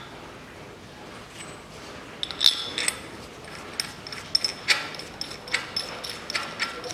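Irregular light metallic clicks and clinks, beginning about two seconds in, as the toothed camshaft pulley is fitted onto the camshaft and its centre bolt is turned in by hand.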